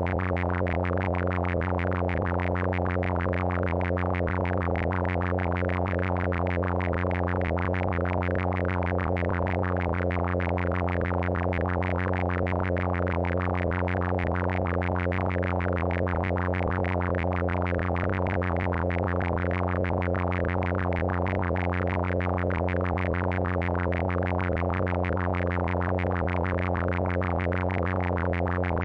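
Steady synthesized drone offered as the 'sound' of the planetary nebula NGC 7662: a low hum with a stack of overtones and a rapid flickering shimmer above it.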